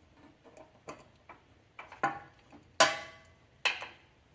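Metal wrenches clinking and clanking against each other and the fitting: about six sharp separate clicks, the loudest about three seconds in with a brief metallic ring.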